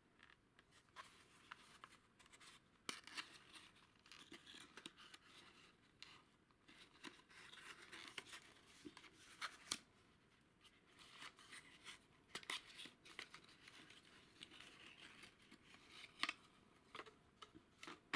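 Small cardboard valve box being handled and opened: faint, irregular scraping, rustling and clicks of fingers on card as the end flap is worked open and the glass vacuum tube is slid out.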